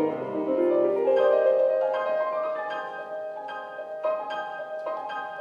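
Instrumental music: a melody of separate pitched notes, each struck or plucked and ringing away. It is fuller and louder for the first couple of seconds, then thins to single notes spaced apart and grows softer.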